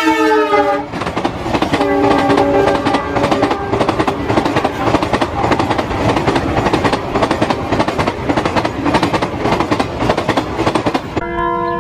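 Locomotive horn of an Indian Railways train sounding as it arrives, its pitch dropping as it passes about a second in, then the high-speed train rushing by with rapid, continuous wheel clatter over the rail joints. Near the end a new steady tone takes over.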